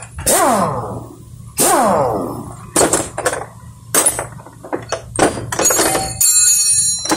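Hand tools on metal under a car: two sounds falling in pitch in the first two seconds, then a run of sharp clicks and clanks, and metal ringing for about a second near the end.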